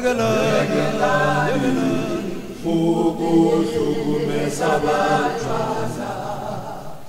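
Gospel choir singing in harmony, holding chords in phrases with short breaks.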